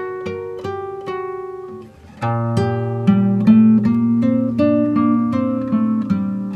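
Instrumental background music: a melody of plucked notes that each ring and fade. About two seconds in it briefly drops away, then comes back fuller and louder, with sustained bass notes underneath.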